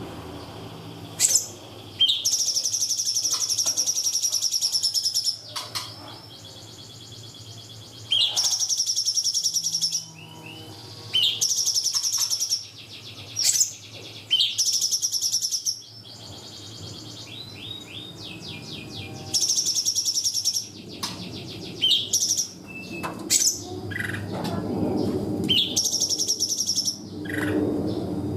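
Cungkok songbird singing its 'tembakan' song: loud, rapid, high-pitched phrases of a second or two each, repeated about eight times with natural pauses between.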